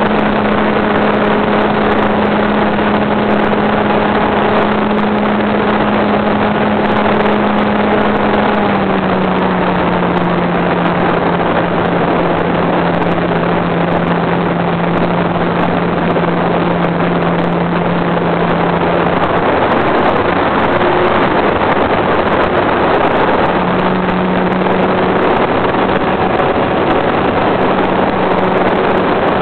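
Hangar 9 radio-controlled model airplane's motor and propeller droning in flight, heard on board under heavy wind rush over the microphone. The drone steps slightly lower in pitch about nine seconds in, sinks under the wind for a few seconds, then comes back.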